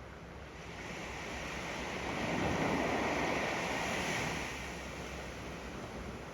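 Ocean waves washing up on the sand: one wave's rush swells over the first couple of seconds, is loudest around the middle, and fades away as it recedes.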